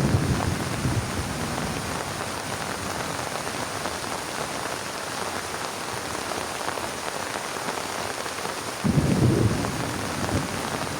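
Heavy rain falling in a steady hiss, with thunder rumbling low: a rumble fades out in the first second, and another breaks in suddenly near the end.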